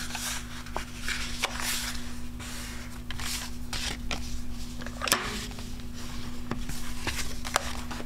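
Cardstock sliding and rustling on a craft mat as it is folded in half and the fold pressed flat, with a few light taps of paper and tools set down. A steady low hum underneath.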